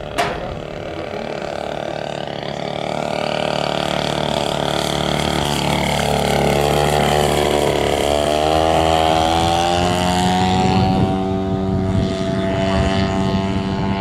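Engine of a radio-controlled scale Fokker biplane running in flight. Its note dips in pitch about halfway through, then climbs and holds higher. A sharp click comes right at the start.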